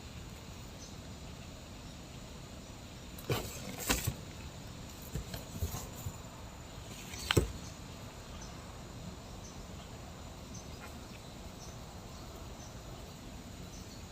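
A handful of sharp clicks and knocks, clustered between about three and eight seconds in, the loudest one near the middle, over a steady low background hiss.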